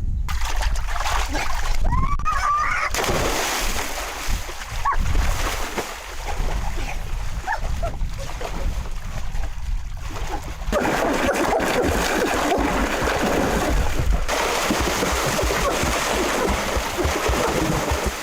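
Water splashing and sloshing, heavier in the second half.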